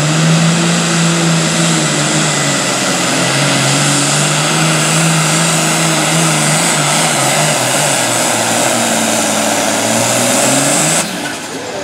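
Allis-Chalmers pulling tractor's engine running flat out under full load, pulling a weight-transfer sled down the track. The engine note holds steady with a slight waver, then drops off suddenly about 11 seconds in as the pull ends.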